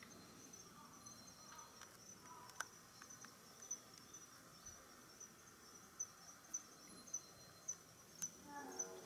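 Faint, high-pitched chirping of a singing insect: a steady run of short chirps repeated at an even pace.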